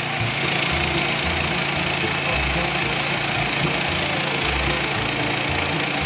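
Gasoline engine of a Woodland Mills portable band sawmill running steadily with an even, unbroken noise.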